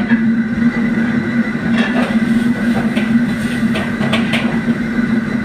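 A small motor running with a steady hum, with a few sharp clicks over it.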